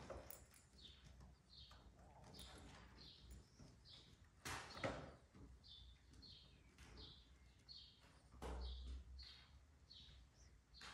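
Faint, short, high-pitched chirps repeating a little under twice a second, with one sharper, louder noise about halfway through.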